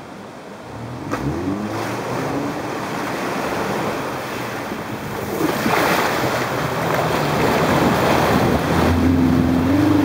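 A first-generation Subaru Forester's flat-four boxer engine working under load as the car fords a fast-flowing river about a metre deep, its note rising about a second in. A loud rush and splash of water pushed aside by the car swells about halfway through, and the engine is loudest near the end.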